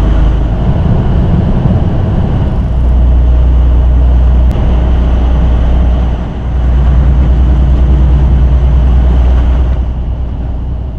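Semi-truck cab noise while driving: a loud, steady low engine drone under road noise, dipping briefly about six seconds in.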